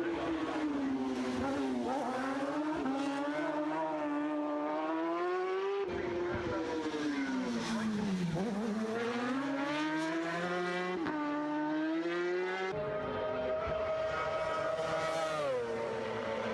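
Racing motorcycle engine at high revs. Its pitch sweeps down and back up as the bike slows and accelerates, and the sound jumps abruptly twice to a different pitch and character.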